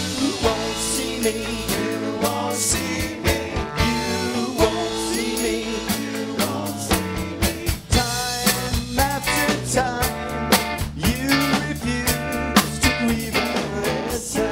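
A band playing a rock song, with singing over electric guitar, bass and drums.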